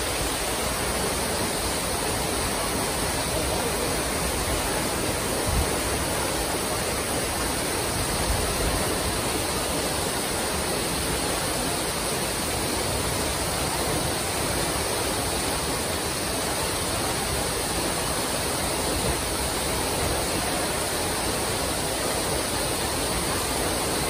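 Waterfall in full flow plunging down a rock cliff into a pool: a steady rush of falling water.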